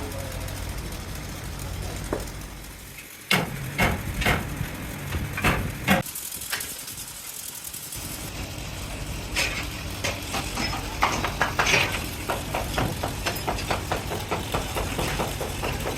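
Workshop machinery running with a steady low drone. Several sharp metallic knocks come a few seconds in. After a brief break, the drone returns with a long run of quick, clattering strikes.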